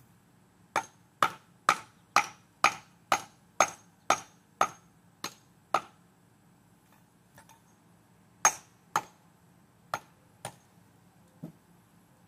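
Brick hammer striking an 8-inch hollow concrete block: a run of sharp, ringing hits about two a second, then a pause and five more spaced blows, the last one duller, as the block is scored and splits in two.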